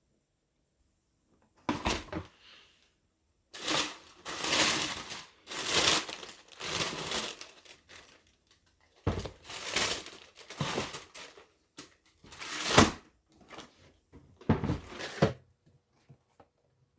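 Shoebox packaging being handled: paper crinkling and rustling in a string of short bursts, with a sharper, louder crackle near the end.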